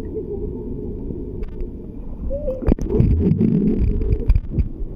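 Swimming-pool water heard by a submerged microphone: a muffled low rumble of moving water. There is a sharp knock about two and a half seconds in, and a louder churning stretch after it.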